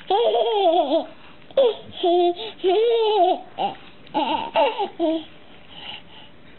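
A baby laughing and babbling in a series of short, high-pitched bursts.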